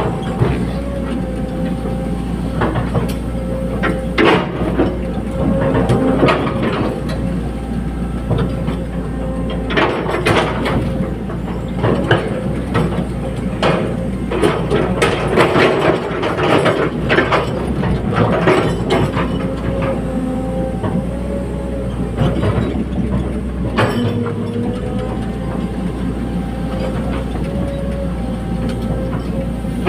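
Caterpillar 320D hydraulic excavator at work: its diesel engine runs steadily under a wavering hydraulic whine, with repeated clanks and knocks throughout, thickest in the middle.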